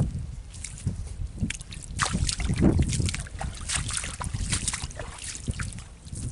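Wind buffeting the microphone as an uneven low rumble, with irregular crackling rustles of dry grass underfoot.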